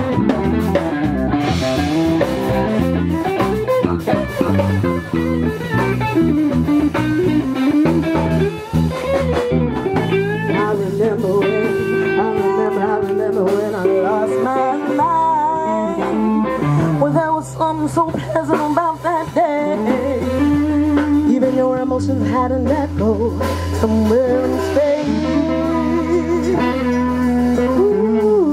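Live blues band playing with electric guitar and drum kit. A woman's singing voice comes in about ten seconds in and carries the tune over the band.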